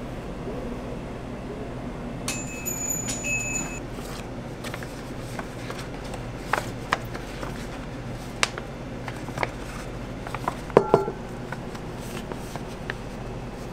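Steady hum of kitchen equipment or ventilation in a small food-stall kitchen. About two seconds in, an electronic appliance beeps for about a second and a half. Light taps and rustles follow as the crepe is handled and wrapped in a paper cone, with two sharper clinks near the end.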